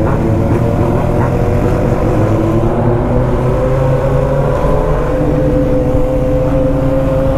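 BMW R1200 GS flat-twin (boxer) engine running under way, its note climbing slowly as the bike gathers speed.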